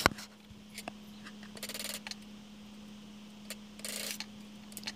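Hand-chiselling a small mortise in a mahogany block held in a vise: a sharp knock at the start, a few light taps, and two short scraping strokes of the chisel about two and four seconds in, over a steady low hum.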